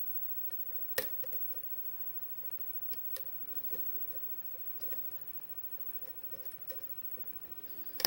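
Faint scrapes and small clicks of a hook pick working the pins of a five-pin Kwikset lock against a tension wrench, with a sharper click about a second in and another near the end.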